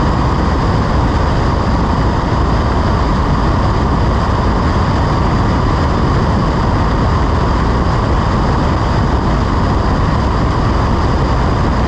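Single-engine propeller airplane's engine and propeller running steadily at climb power, with the rush of air past the airframe, loud and unchanging.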